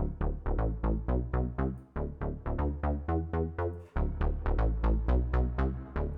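Synth bass line played through the SSL EV2 channel strip plugin: a fast repeating run of short, punchy notes with a heavy low end, the phrase restarting about every two seconds. The sound is driven and shaped by the plugin's dynamics, heard as dirty and gritty.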